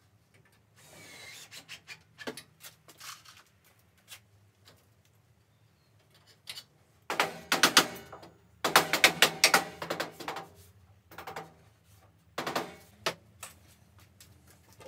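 Bursts of rapid knocks and clatter as a timber frame is handled and fitted on a metal workbench, with a short scraping rub about a second in. The densest runs of knocks come about halfway through.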